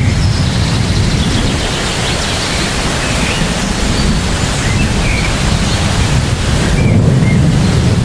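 Heavy rain falling steadily on trees: a dense, even hiss over a deep low rumble.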